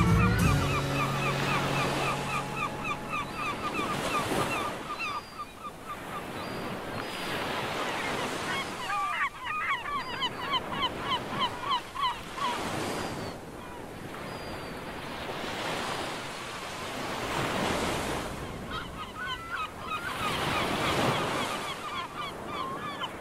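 Ocean surf breaking and washing up a beach, the wash swelling and fading every few seconds, with birds giving runs of short, rapidly repeated calls over it.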